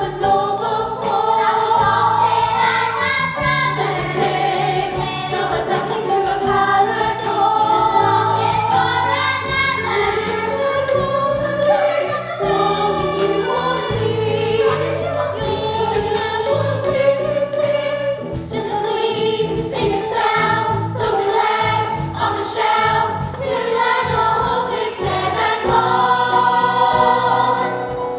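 A chorus of voices singing a musical-theatre number over instrumental accompaniment.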